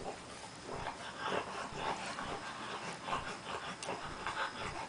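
Three-week-old French bulldog puppies whimpering and squeaking in short, irregular cries.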